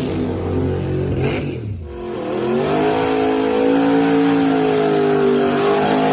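Turbocharged drag-race Chevrolet S10 pickup's engine held at high revs through a burnout, the rear tyres spinning in smoke. About two seconds in the sound cuts to another clip, where the note dips, climbs back and holds steady.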